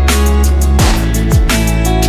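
Music with a heavy beat: deep falling bass thumps about every half second under sustained chords, with bright drum and cymbal strikes.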